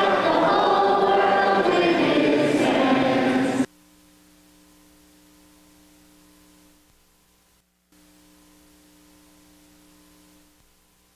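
Choir singing the closing theme, loud, cutting off abruptly about three and a half seconds in. A faint steady hum follows.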